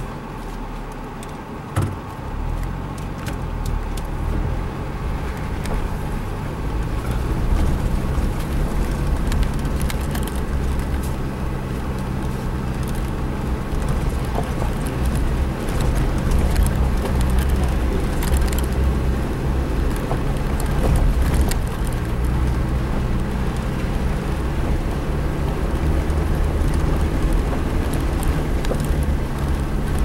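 Suzuki Jimny's engine running as it drives along a rough dirt road, heard from inside the cab, growing louder over the first several seconds as it works up a rise. Frequent small clicks and knocks run through it.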